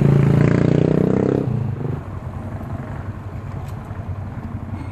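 Motorcycle engine running while stopped, loud for about the first second and a half, then settling quieter.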